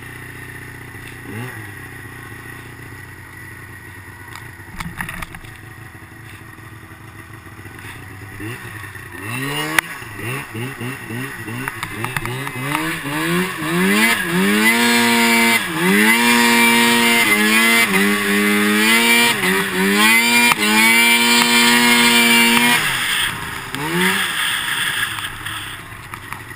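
Snowmobile engine under the rider, running quietly at first, then from about ten seconds in revving hard in repeated surges, its pitch climbing and dropping as the throttle is worked. Near the end it eases back, with one short rev.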